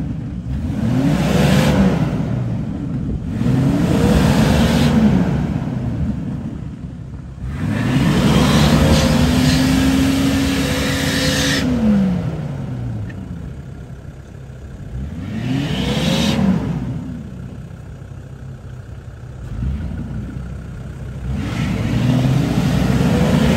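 Jeep Grand Cherokee's 4.0-litre straight-six revved hard in about five bursts as it strains to climb a muddy, snowy bank. Each rev rises and falls in pitch, the middle one held high for about three seconds, with the engine dropping back towards idle in between.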